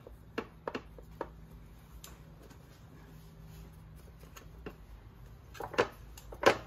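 Scattered clicks and knocks of a plastic transmission oil pan being handled and shifted on a concrete floor, the loudest knock near the end.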